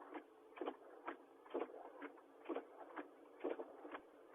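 Car hazard-light flasher relay ticking inside the cabin, a faint, regular click about twice a second.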